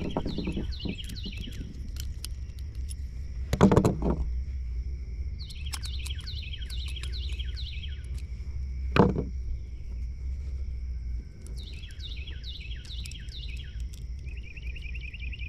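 A songbird sings three short bouts of quick falling notes and a fast trill near the end, over a steady high insect drone. Two sharp knocks come about four and nine seconds in.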